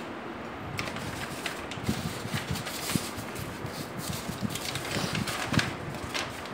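Sheets of paper rustling and being handled on a desk, with irregular light taps and clicks, growing a little louder as a sheet is lifted and moved near the end.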